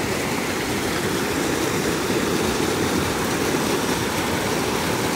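Creek water running: a steady, even rush.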